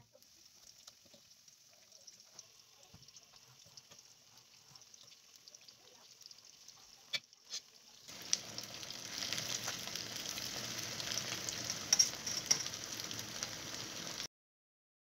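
Batter-coated cauliflower florets deep-frying in hot oil in a wok: faint sizzling and crackling at first, then much louder, dense sizzling with a few sharp pops from about eight seconds in, cutting off abruptly near the end.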